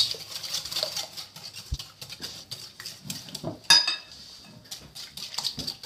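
A utensil stirring a thick sugar, melted chocolate and butter mixture in a glass bowl, scraping and clicking against the glass, with one sharp ringing clink on the glass a little past halfway.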